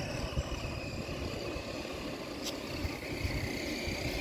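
Electric drive motor of an HBX 16889 1/16-scale RC monster truck whining steadily as the truck runs across stone paving, the pitch drifting a little with the throttle, over a low rumbling noise.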